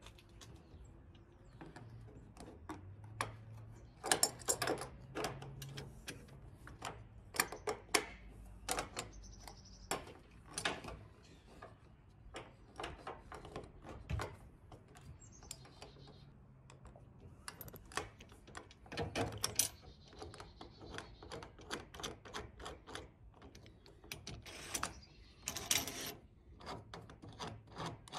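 Irregular small clicks and clinks of bolts, washers and plates being handled and fitted by hand into a truck-rack side rail over the bed's stake pocket.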